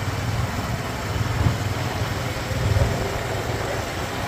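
Motorcycle riding at a steady speed: a steady engine hum mixed with wind and road noise.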